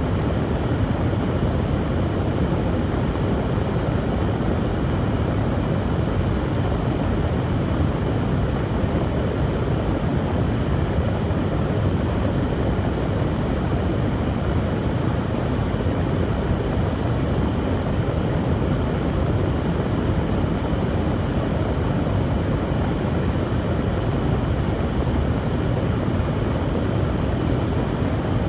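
Hair dryer blowing steadily: an even whooshing rush of fan and airflow, strongest in the low end, with no change in level.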